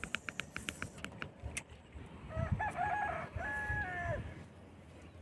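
A rooster crows once, a drawn-out call of about two seconds starting a little over two seconds in. Before it, in the first second and a half, comes a quick run of light clicks.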